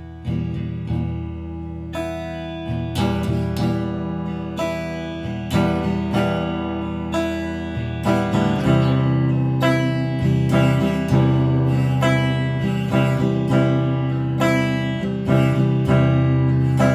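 Squier electric guitar strummed in slow worship chords, each chord left to ring into the next, about once or twice a second, getting louder about three seconds in.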